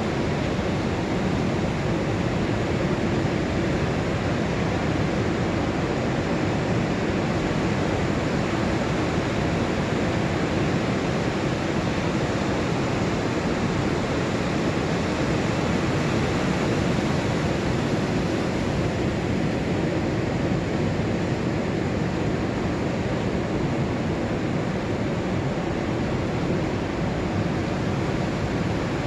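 Ocean surf on an incoming tide: many broken waves washing up the beach together, a steady, unbroken rush of water.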